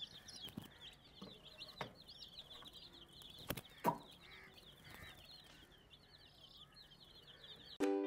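A flock of baby chicks peeping, many high chirps overlapping without a break, with two sharp clicks about halfway through.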